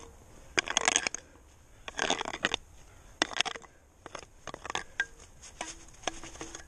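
Fresh snow being scraped and brushed off rock by a winter climber's gloved hands and boots while searching for holds: three loud bursts of scraping and crunching, then lighter scrapes and clicks.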